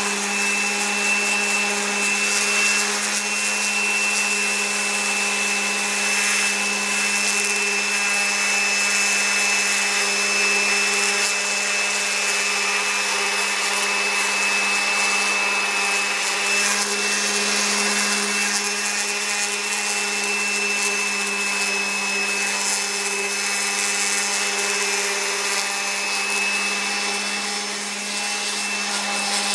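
Electric power sander running steadily against carved wood, a steady motor whine over a hiss of sanding.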